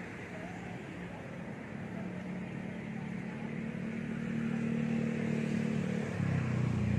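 A motor vehicle's engine running with a steady low hum, growing gradually louder as it approaches and jumping louder again near the end.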